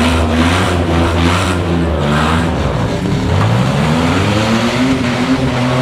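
Demolition derby trucks' engines revving hard; one engine climbs in pitch over about two seconds, then drops back.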